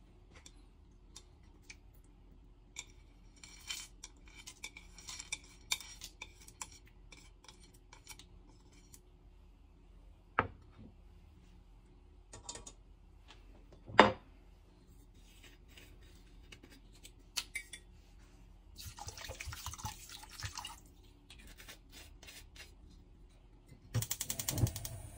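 Chopsticks clicking and scraping on a ceramic plate as American ginseng roots and ginger slices are pushed off it into a pot of chicken in water, with two sharp knocks of crockery partway through. A louder brief clatter comes near the end.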